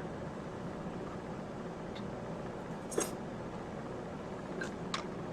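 Steady low room hum, with a sharp click about three seconds in and two lighter ticks near the end, like small items being handled.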